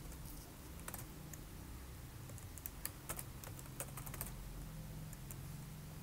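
Computer keyboard typing: faint, irregular keystrokes, scattered unevenly, over a low steady hum.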